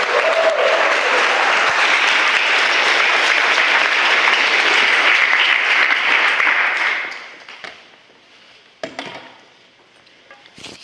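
Audience applauding steadily, the clapping dying away about seven seconds in. A couple of brief knocks follow in the quiet.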